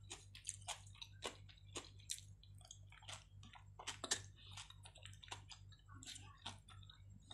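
A person eating close to the microphone: chewing soft chicken and potato, with small, irregular mouth clicks and the scrape of a spoon on a plate.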